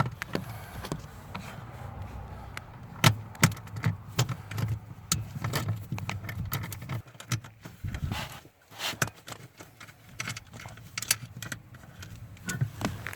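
Irregular metallic clicks and rattles of a 7 mm socket wrench undoing the mounting bolt of a parking brake switch.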